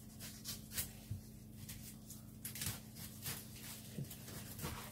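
Broccoli being cut apart with a knife on a bamboo cutting board: faint, irregular crisp snaps and taps as the blade goes through the florets and stalk and meets the board.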